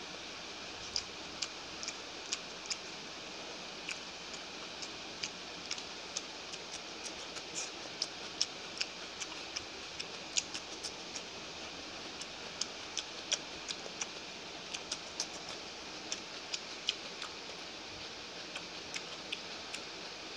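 A person eating rice by hand at close range: irregular sharp clicks and smacks of chewing and of fingers working rice on the plate, about two or three a second, over a steady hiss.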